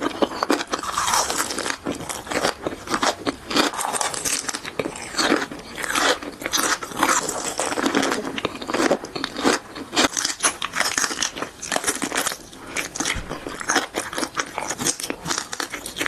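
Crisp food being bitten and chewed: dense, irregular crunching.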